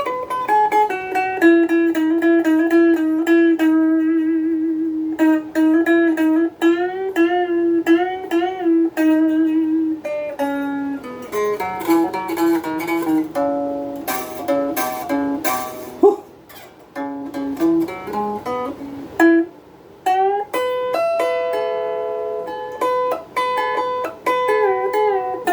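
Donner DST-80 Strat-style electric guitar on its middle pickup, played clean through a small practice amp: a run of picked single notes with string bends and vibrato, then several notes sounded together near the end.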